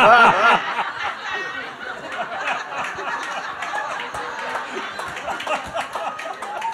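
A man laughs loudly into a microphone for about the first half second, then audience laughter and scattered chatter fill the room.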